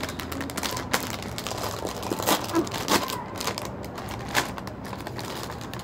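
Plastic foil snack packet crinkling and crackling as it is handled and opened by hand, with a string of sharp crackles, the loudest about two to three seconds in.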